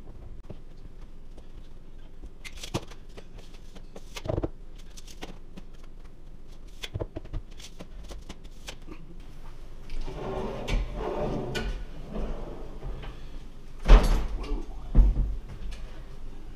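Intermittent clicks and knocks of wooden base cabinets and their fittings being handled, with a busier stretch of knocking about ten seconds in and two loud thumps near the end.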